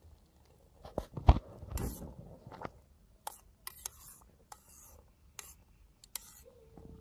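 Metal spoon stirring tea in a steel pot, knocking and scraping against the pot's side: a loud knock a little after a second in, amid a few seconds of scraping, then scattered light clicks.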